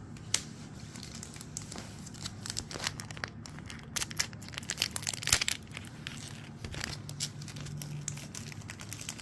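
Foil trading-card booster pack wrappers crinkling in irregular crackles as packs are handled and opened, busiest about halfway through.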